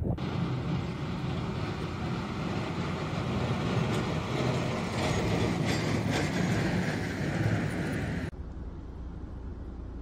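A vehicle engine rumbles low and steady under a loud, noisy rush. The sound cuts off abruptly about eight seconds in, leaving a quieter steady hiss.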